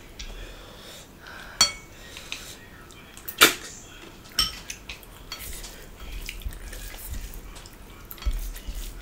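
Scattered clinks and taps against a ceramic bowl as a hand picks through rice and cooked river snails. A few sharper clicks stand out, the loudest about three and a half seconds in.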